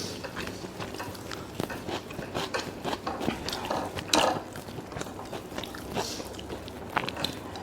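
Close-miked eating: chewing and biting with many small clicks, and louder bites about four and six seconds in.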